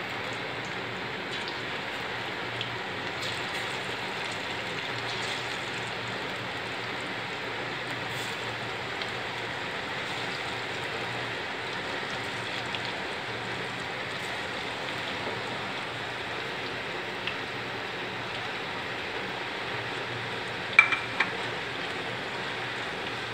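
Battered banana-flower strips deep-frying in hot oil in a steel pot, a steady dense sizzle. Near the end, a few sharp knocks of a metal slotted spoon against the pot.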